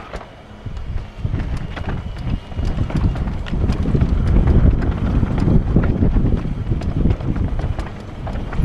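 Commencal downhill mountain bike rattling and clattering over a rocky dirt trail, with tyres crunching and sharp knocks as the bike hits rocks, and wind on the microphone. The clatter gets louder about three seconds in as the trail turns rougher.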